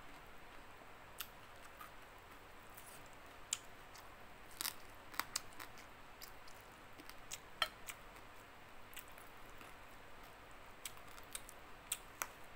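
Close-miked eating sounds: scattered soft clicks and smacks of chewing fried fish and picking at it with the fingers, coming irregularly.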